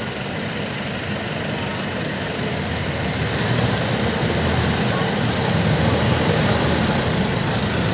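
Steady outdoor traffic noise with a vehicle engine running, growing a little louder about halfway through.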